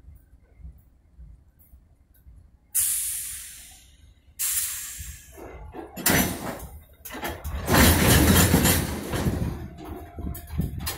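Sharp air hissing from a slowly moving freight train's air brakes, twice, each burst starting suddenly and fading over a second or so. From about halfway on, a louder, sustained rumbling noise of the rolling cars.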